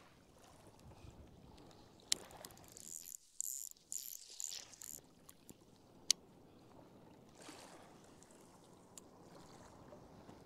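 Faint water splashing in short bursts, with a couple of sharp clicks, as a hooked fish is drawn in at the surface and landed.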